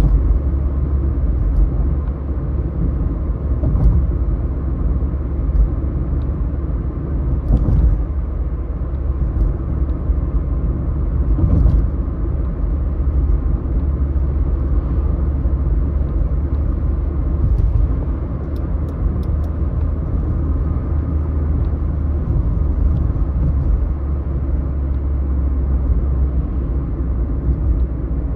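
Car driving through city streets: a steady low rumble of engine and road noise, with a few faint clicks.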